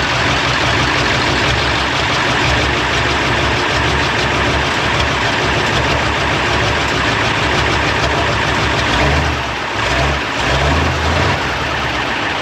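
Deutz air-cooled V8 diesel of a MAN KAT truck running steadily just after being started with its injectors freshly refitted, a loud, even diesel clatter. The sound dips briefly about three-quarters of the way through, then picks up again.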